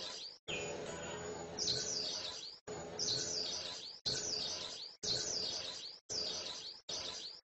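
Oriental magpie-robin singing: repeated phrases of loud, sweeping whistled notes. The sound cuts off abruptly several times, about once a second, and starts again.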